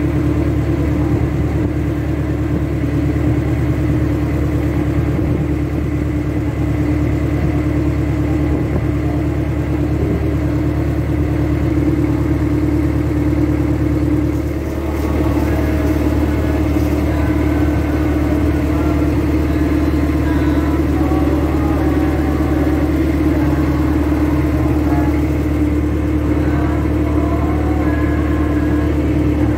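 Inboard engine of a wooden river boat running steadily under way, a constant drone with a steady hum. It dips briefly about halfway through, then carries on.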